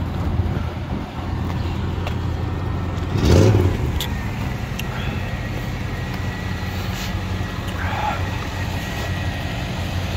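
Chevy Caprice engine running steadily, with one short rev a little over three seconds in.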